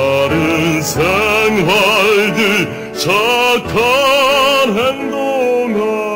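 A man singing a slow, held show-tune melody with wide vibrato, over orchestral accompaniment.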